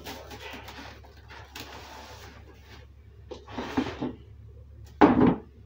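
Plastic cling film crinkling and rustling as it is drawn off a roll and pressed around a metal sheet pan, with a louder rustle about three and a half seconds in. A short, loud thump or crackle comes near the end.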